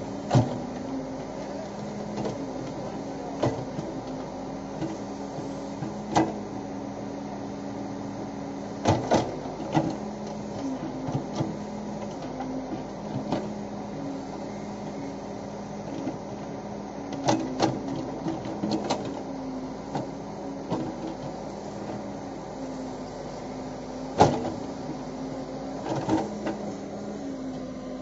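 CASE 770 backhoe loader's diesel engine running while the rear backhoe digs soil, its note shifting between two pitches as the hydraulics take load. Sharp knocks and clanks from the bucket and arm come every few seconds, in clusters around 9, 17–19 and 24–26 seconds in.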